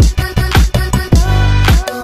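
Background electronic music with a steady, heavy beat.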